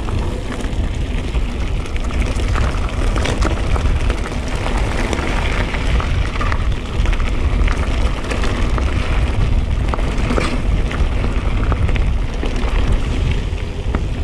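Full-suspension mountain bike descending loose dirt over hard pack: knobby tyres crunching over grit and small stones, with scattered rattles and clicks from the bike throughout. A heavy low rumble of wind on the microphone runs under it.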